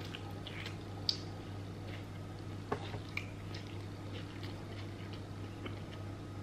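A person chewing a mouthful of pizza, with soft, scattered wet clicks and smacks over a faint steady low hum.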